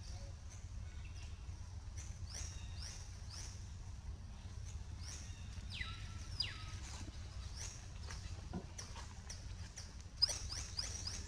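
A run of short, high animal chirps, each falling in pitch, with one longer falling call about six seconds in and a quick burst of chirps near the end, over a steady low rumble.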